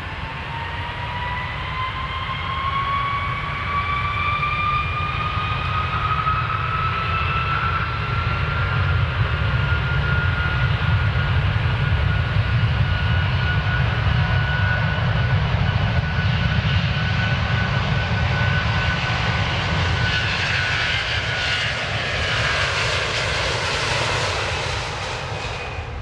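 Airplane engines at takeoff power: a low rumble under a whine that climbs in pitch for about the first ten seconds and then holds steady, growing louder. A rushing hiss builds near the end.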